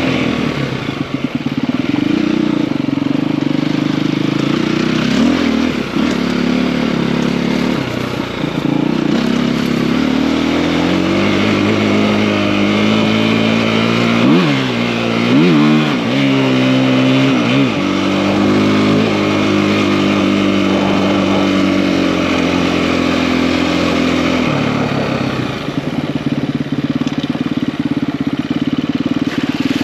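KTM EXC-F enduro bike's single-cylinder four-stroke engine, bored out with a 280 big-bore kit, running under way. Its pitch holds, dips and climbs with the throttle, with three quick throttle blips about halfway through.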